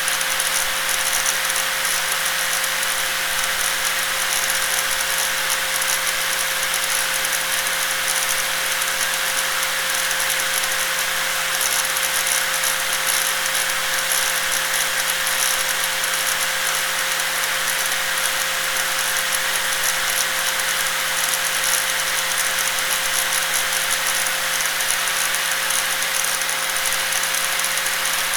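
Electric angle grinder running steadily at full speed: a constant whine with a harsh, high hiss above it.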